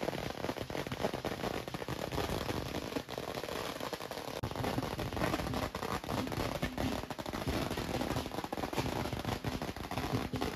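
A long string of firecrackers going off: a dense, unbroken crackle of small rapid bangs.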